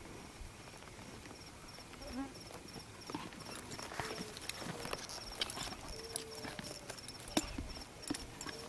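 Horse hooves clip-clopping at a walk: irregular hoof knocks on dry ground. Behind them, an insect chirps steadily and high-pitched, about four chirps a second.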